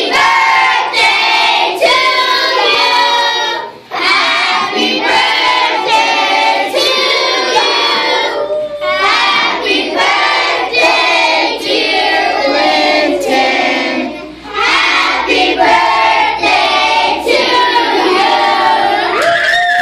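A group of children singing a song together, breaking off briefly twice between phrases.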